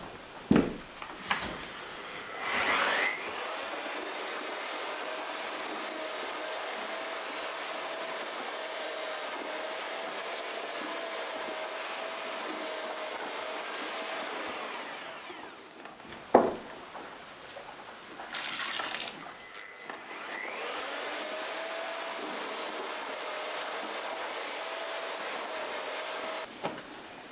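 Electric paddle mixer stirring mortar in a plastic bucket: the motor whines up to speed, runs steadily for about twelve seconds, then winds down. After a sharp knock and some clatter it runs again for about six seconds.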